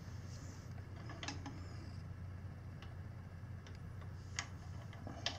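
A few faint, scattered metal clicks and ticks of hand tools being handled and fitted to a motorcycle engine's crankshaft bolt, over a low steady hum.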